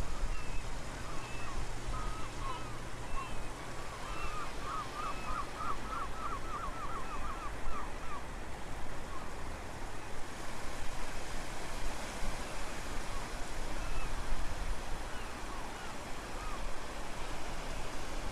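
Steady surf noise with short, wavering animal calls over it, including a quick run of about ten calls about four to six seconds in.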